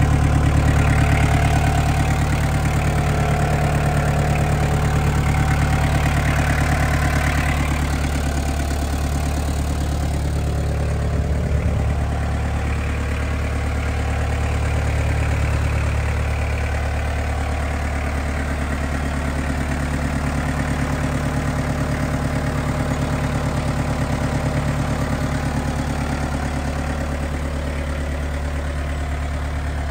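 Yanmar FX32D compact tractor's four-cylinder diesel engine idling steadily, with a brief click about eleven seconds in.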